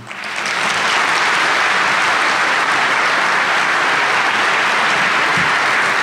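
Conference audience applauding: a steady crowd of hand claps that builds up over the first second and holds.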